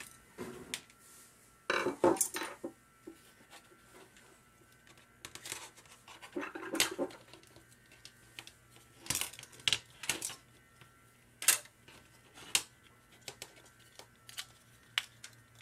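Plastic display housing of an OXO food scale being pried apart with a plastic pry tool: irregular clicks and scraping of plastic on plastic as the case halves separate.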